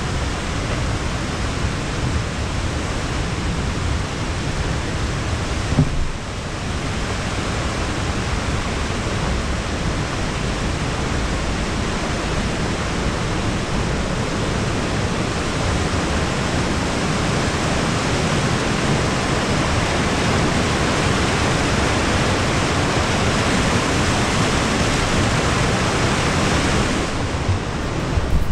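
Mountain creek rushing over rocks, a steady loud hiss of whitewater, with a brief bump about six seconds in.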